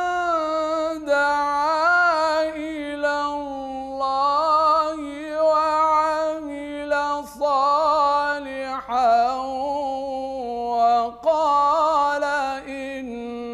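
A male qari recites the Quran in melodic tajweed, drawing out long ornamented notes whose pitch wavers and slides, with a few short breaks between phrases.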